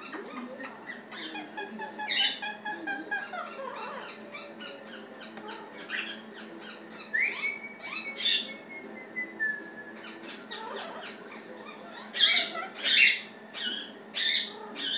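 Blue-fronted Amazon parrot calling and whistling in a string of varied pitched calls, with a long falling whistle about halfway through. Several loud squawks come near the end.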